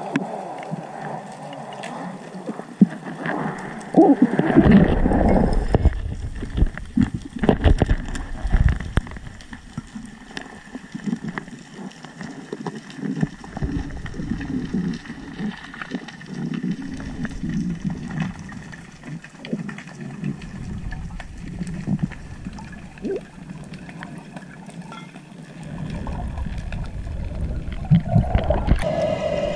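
Underwater noise of a freediver swimming with fins: water rushing and bubbling around the camera housing, with low rumbling thumps that are strongest about four to nine seconds in and again near the end.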